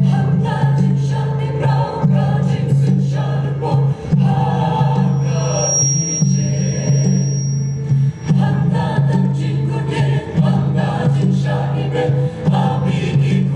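A mixed choir of women's and men's voices singing together in harmony, amplified through stage microphones, with short breaths between phrases about every two to four seconds.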